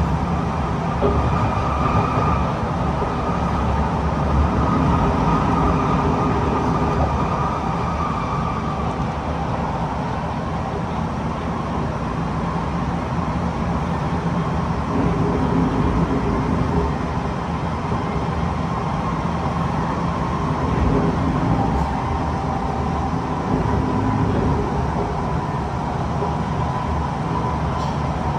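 Kawasaki C151 metro train running, heard from inside the carriage: a steady rumble of wheels on rails with a faint high hum that fades after about nine seconds and comes back near the end.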